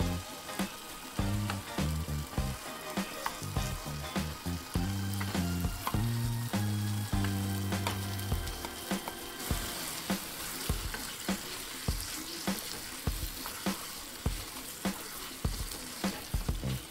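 Egg and potato curry sizzling in a nonstick pan, with frequent small pops and clicks as it is stirred.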